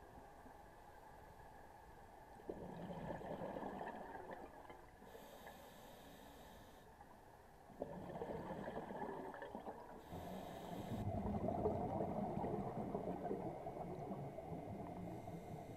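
Scuba diver breathing through a regulator underwater: three exhalations, each a rush of bubbles, the last one long.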